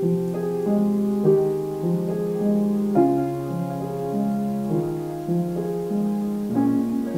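Ambient modular-synth music: a slow, soft piano loop of sustained, overlapping chord notes. The loop is played back from a Make Noise Morphagène tape-and-microsound module and run through delay modules.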